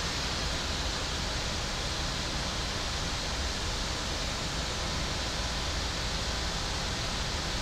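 Steady cockpit noise of a Boeing 737 MAX 8 climbing on autopilot: an even rush of airflow and air conditioning on the flight deck, with no separate events.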